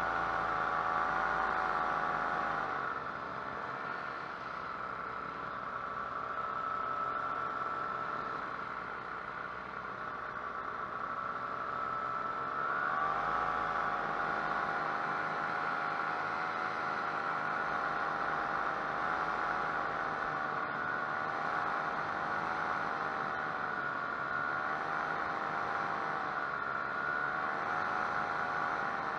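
Paramotor engine and propeller droning steadily in flight. The throttle is eased back a few seconds in, lowering the pitch and level, and opened up again near the middle, after which the engine note wavers slightly up and down.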